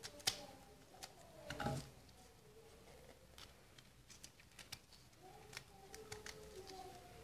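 Faint scattered clicks and light taps of lemon slices being cut and handled in the kitchen, with a duller knock about a second and a half in.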